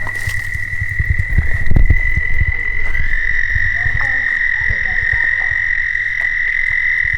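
A toad's long, unbroken high trill, held at one steady pitch, with knocks and a low rumble underneath.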